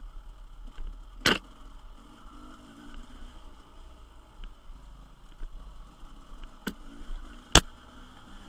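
Dirt-bike ride on a rough trail heard through an onboard camera: a steady low rumble and wind on the microphone, the engine only faint beneath. Three sharp knocks cut through it, one about a second in and two near the end, the last the loudest.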